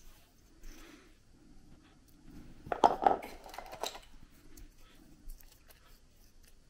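Small clicks and taps of the alarm clock's plastic case and metal slide-switch contacts being handled and bent by hand, with a short flurry of sharp clicks about three seconds in.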